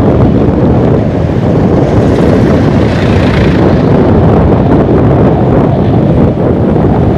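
Wind buffeting the microphone of a camera riding on a moving bicycle: a loud, steady low rumble, with a brief brighter hiss about three seconds in.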